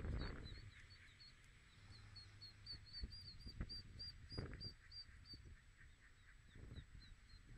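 Mallard ducklings peeping: a quick, even run of short, high peeps, about four a second, fading away after about five seconds. Low rumbling noise is loudest at the very start and swells a few times later.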